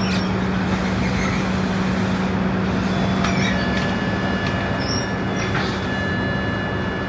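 Scania Kurb (K230UB) Euro 4 bus's diesel engine idling while the bus stands, a steady low hum heard from inside the cabin. A faint high steady tone joins about halfway through, with a couple of light clicks.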